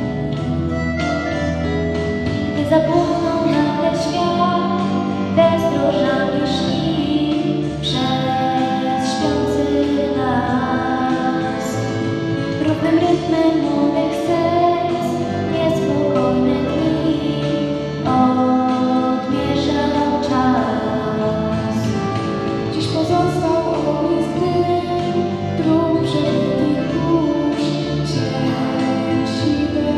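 Girls' voices singing a song to instrumental accompaniment, taking lines in turn into microphones over a hall's sound system.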